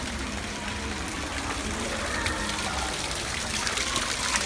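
Water jet from a duck-shaped pool fountain spraying steadily into shallow water, with splashing that grows louder near the end.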